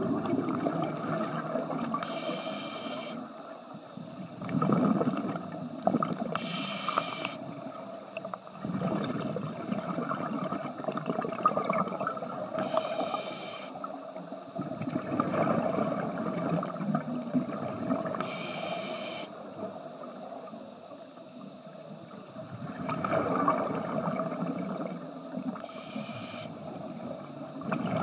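Scuba diver breathing through a regulator underwater, about five slow breaths: each inhale a short sharp hiss, each exhale a longer rushing gurgle of bubbles.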